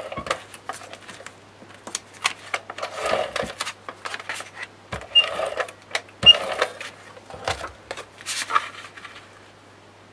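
Scotch Advanced Tape Glider (ATG tape gun) laying double-sided adhesive tape onto chipboard in about five short strokes, each a quick mechanical whir with scattered clicks.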